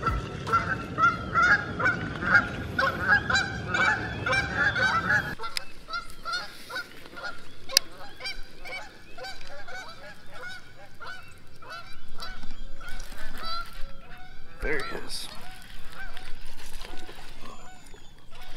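Canada geese honking over and over, a dense flurry of honks in the first five seconds, then scattered honks continuing.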